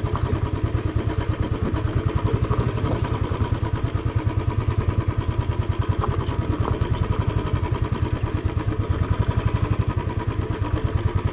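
Royal Enfield Standard 350's single-cylinder four-stroke engine running at steady low revs while riding over a rocky dirt track, with an even, rapid pulsing beat and no revving.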